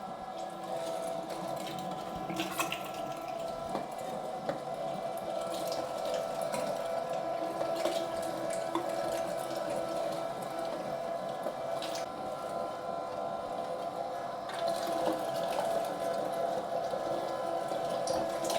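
Electric meat grinder motor running steadily while pork belly and lean pork are fed through the 10 mm grinding plate, with a few faint clicks.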